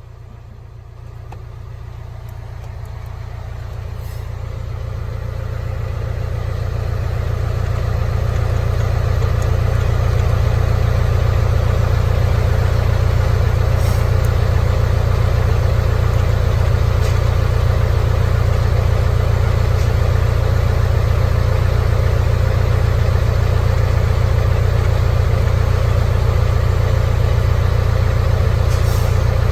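Hino Ranger truck's diesel engine idling with a steady low drone, growing louder over the first ten seconds and then holding even.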